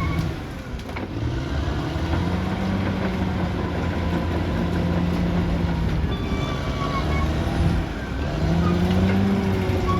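Caterpillar D6R XL bulldozer's diesel engine working under load. Its pitch rises about one to two seconds in and again near the end.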